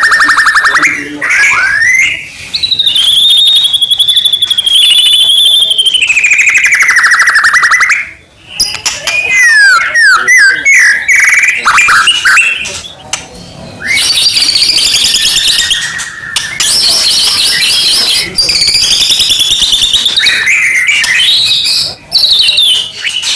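White-rumped shama singing loudly and without pause. Long, rapid trills sweep up and down in pitch, mixed with quick rippling chirps and high runs, with brief breaks about eight and thirteen seconds in.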